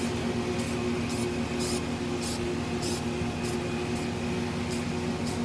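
Rust-Oleum camouflage aerosol spray paint hissing in short, repeated bursts, just under two a second, as the can is worked in quick strokes. A steady low hum runs underneath.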